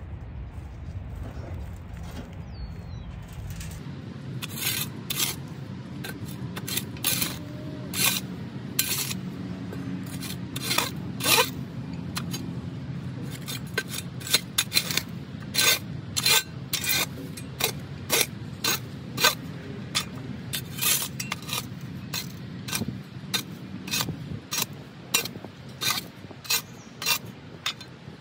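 Metal shovel digging into soil: repeated sharp scrapes of the blade, roughly one to two a second, starting a few seconds in. A low steady rumble lies underneath.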